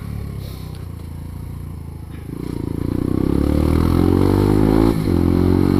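Geared 125cc motorcycle engine at low revs, then accelerating, its pitch rising steadily from about two seconds in. It drops off briefly about five seconds in, at a gear change.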